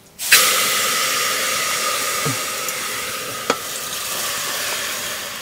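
Food dropped into hot oil in a cooking pan, starting to sizzle loudly all at once and then slowly settling, with one light click of a utensil partway through.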